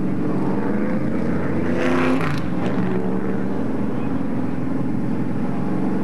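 Racing stock car engines running on the track in a steady drone, with one car passing louder about two seconds in, its pitch dropping as it goes by.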